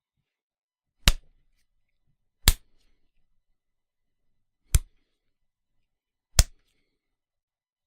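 Four separate punch sound effects, each a single sharp hit with a short tail, spaced one to two seconds apart.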